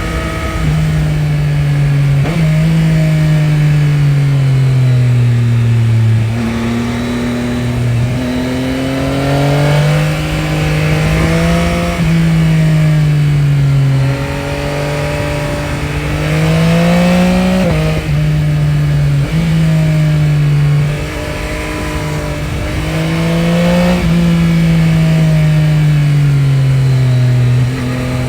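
Yamaha Tracer 9 GT's stock 890 cc CP3 three-cylinder engine running under load. Its pitch climbs and falls over and over, with several sudden drops in pitch.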